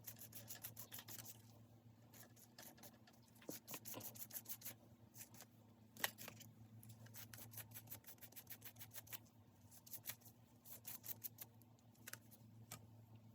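Faint, quick rubbing and brushing strokes of hair dye being worked into the synthetic wig's hair, in short rapid runs, over a steady low electrical hum; one sharper click about six seconds in.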